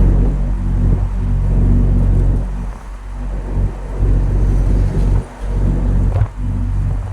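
Truck engine running under way with a steady low drone, dipping briefly about a third of the way in and twice more near the end.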